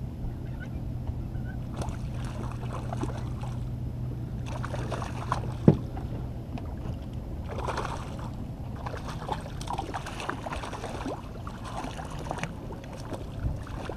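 A hooked barracuda splashing at the surface as it is brought in and netted beside the boat, over a steady low hum. One sharp knock about halfway through is the loudest sound.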